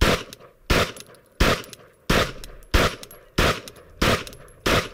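Glock 18 machine pistol fired in semi-automatic mode: eight single 9mm pistol shots at an even pace, about one every two-thirds of a second.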